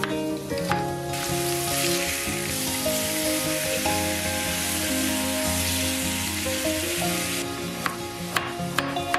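Pork steaks sizzling as they fry in oil in a pan. The sizzle starts about a second in and stops suddenly near the end. Before and after it, a chef's knife taps on a wooden cutting board as vegetables are sliced.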